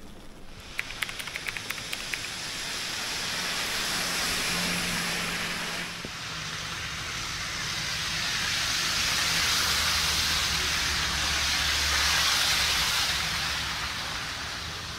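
Traffic passing on a wet, slushy street: tyre hiss swells up twice, the second pass louder and carrying a low engine rumble, then fades. A quick run of light clicks comes about a second in.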